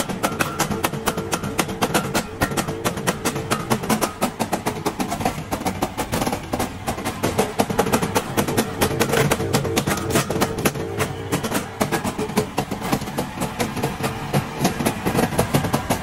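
Background music with a quick percussion beat.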